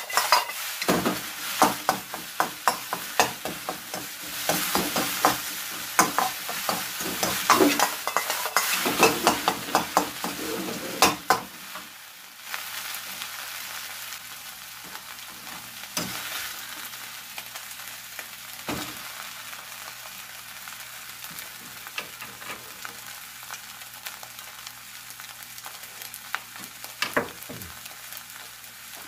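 Shrimp fried rice sizzling in a black wok, with a wok ladle rapidly scraping and clacking against the pan as the rice is tossed and stirred for about the first twelve seconds. After that the sizzle goes on more quietly, with only an occasional knock of the ladle.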